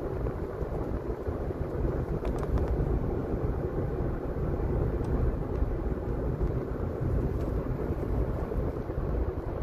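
Steady low rumble of road and engine noise inside a moving car's cabin, with a few faint ticks about two and a half seconds in.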